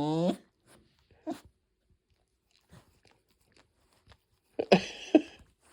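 A Tibetan terrier making strange mouth and nose noises. A pitched sound trails off just after the start, then come a few faint clicks, and about four and a half seconds in two short, rough bursts close together.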